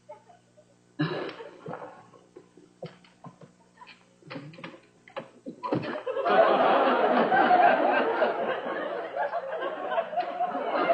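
Audience laughter: scattered chuckles for the first several seconds, then a big, sustained burst of laughter from about six seconds in.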